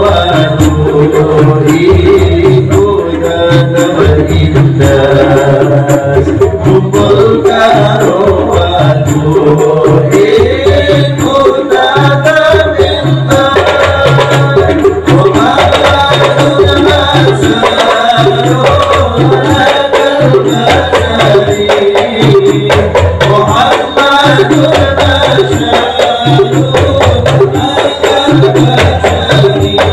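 Sholawat devotional music, singing over percussion, played loud through a sound system, with heavy subwoofer bass pulsing on a steady beat.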